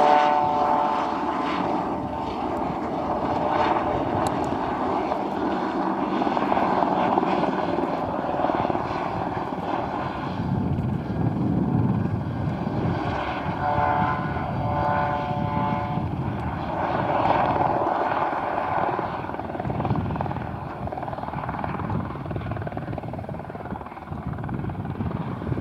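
Airbus EC120B helicopter, with its single Turbomeca Arrius turboshaft and rotors running, flying low display manoeuvres; the noise swells and fades as it turns. A brief whining tone comes through about fourteen seconds in.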